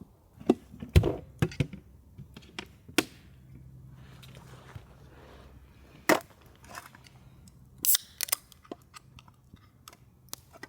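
A string of irregular sharp knocks and cracks, loudest about a second in and again near the middle and toward the end.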